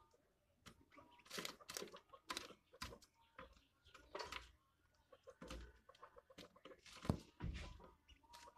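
Two quails pecking at a locust on wooden boards: a run of faint, irregular pecks and scuffles, with soft clucking.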